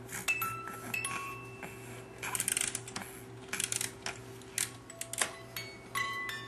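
A baby's musical toy playing a tinkling, glockenspiel-like tune of single bell-like notes, each ringing briefly. The notes are sparse at first and come quicker near the end, with a few short rustles in between.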